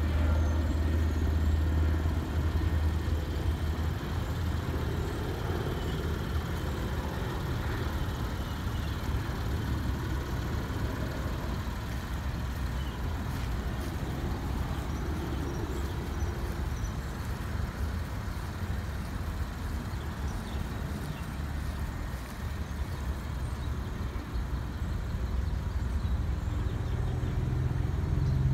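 2009 Lexus IS250's 2.5-litre V6 idling steadily, getting louder near the end.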